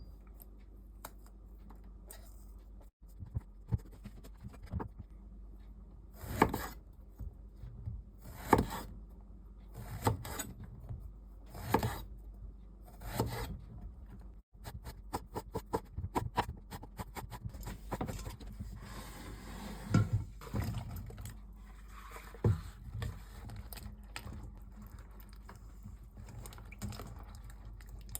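Kitchen prep on a wooden cutting board: separate knife knocks and scrapes every second or two, with a quick run of light chopping taps about halfway through.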